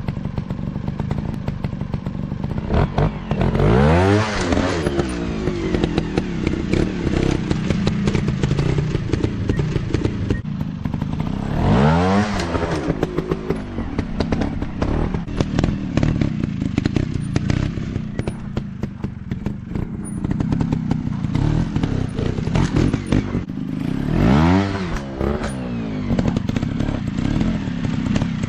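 Dirt-bike engine running and revving up and back down three times, about ten seconds apart, with clattering knocks throughout.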